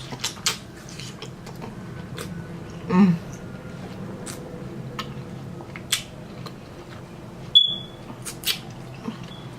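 Close-miked eating sounds of someone chewing juicy mango and watermelon: scattered wet mouth smacks and clicks over a steady low hum.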